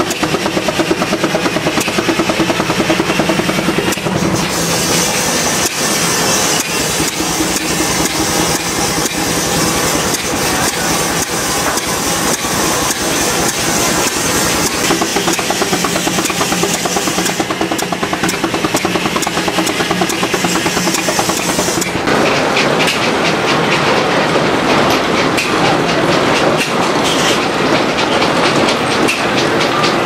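Steam traction engine running and driving a sawmill through a long flat belt: rapid, even exhaust chuffs, with a steady high hiss through about the first two-thirds.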